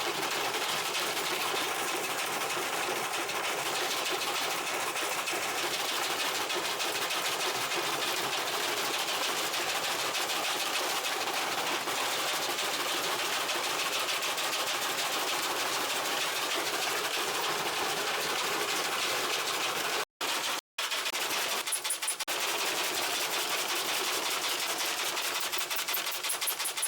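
Washing machine running hard with a continuous rapid rattling and clattering, broken by two brief silent gaps about three-quarters of the way through.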